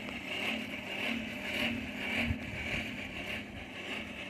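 Hand-cranked blower whirring steadily, forcing air into the fire under a copper pot being heated for tinning; a low steady hum under a hiss that swells and fades in a regular rhythm.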